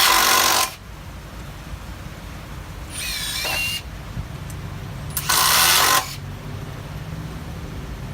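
Hitachi WH36DB 36-volt cordless impact driver driving fasteners deep. A loud run of hammering ends just under a second in. About three seconds in the motor whines up again, and at about five seconds the hammering kicks in for under a second as the next fastener is sunk.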